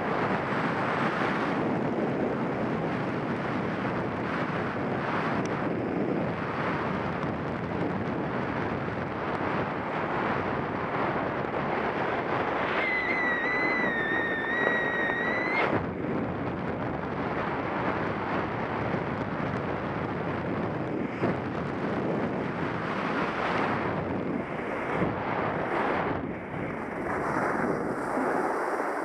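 Wind rushing over the microphone of a skier's body-worn camera during a downhill run, mixed with the hiss of skis sliding on packed snow. About halfway through, a high whistling tone sounds for about three seconds.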